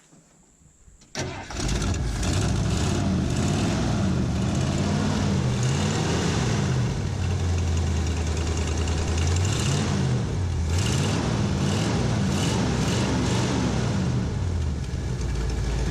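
1978 Ford F100 truck engine starting about a second in and catching after sitting six months, now on freshly added gasoline. It then runs with the revs rising and falling several times, holding at a steady speed in between.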